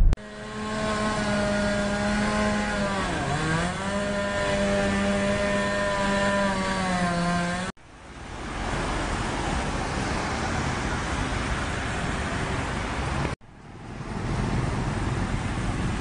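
A steady engine drone that dips briefly in pitch and recovers, cut off abruptly. It is followed by the even hiss of road traffic on a wet road, with a second abrupt cut.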